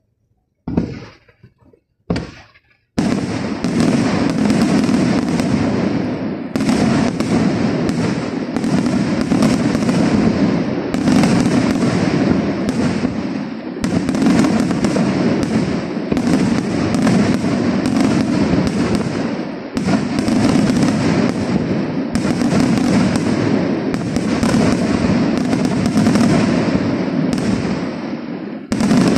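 Fireworks display: two short bangs, then about three seconds in a dense, unbroken barrage of rapid firework explosions and crackling that swells in waves about once a second.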